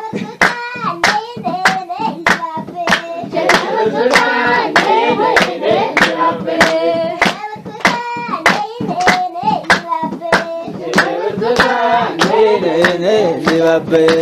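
Voices singing a song with steady rhythmic hand clapping throughout, in the manner of a traditional Ethiopian song.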